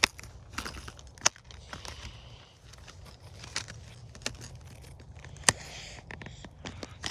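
Irregular sharp clicks and rustling from hands handling fishing tackle while getting out a popper lure.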